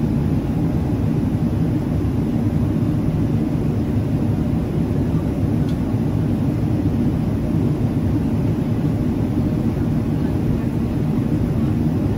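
Steady cabin noise of a Boeing 777-300ER climbing out: a low, even rumble of its GE90-115B turbofan engines and the airflow past the fuselage, heard from a window seat near the front of the cabin.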